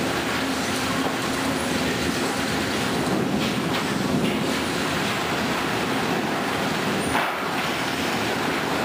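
Lumber crib stacker and mill conveyors running: a steady machine noise with a low hum, and a few knocks of boards and steel, the sharpest about seven seconds in.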